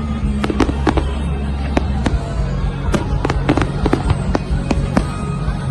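Fireworks going off in an irregular run of sharp bangs and crackles, several a second, over music with a steady bass line.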